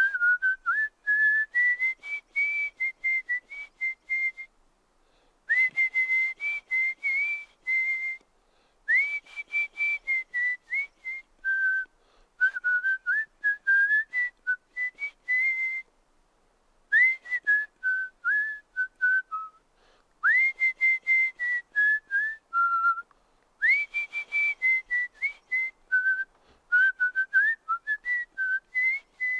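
A person whistling through the lips in phrases of quick, separate notes around one high pitch. Several phrases open with a sharp upward swoop, and short pauses fall between them.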